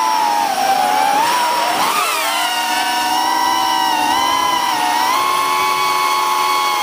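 Holybro Kopis Mini FPV quadcopter's brushless motors and propellers whining in flight, several close pitches sounding together. The pitch dips and swings about a second or two in as the throttle changes, then holds steady.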